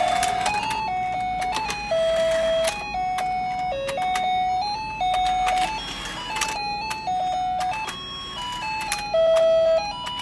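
Battery-powered duck stair-climbing toy playing its simple electronic jingle, one plain beeping note at a time, with sharp clicks scattered through the tune.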